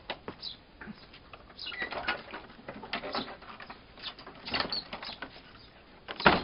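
A dog jumping at a wooden plank shed door, paws scrabbling while the door knocks and scrapes against its frame, with one loud bang near the end as the door is shoved shut.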